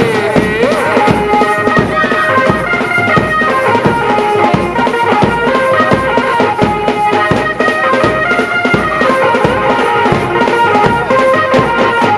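Background music with a steady drum beat under held melody notes, an instrumental stretch of a song.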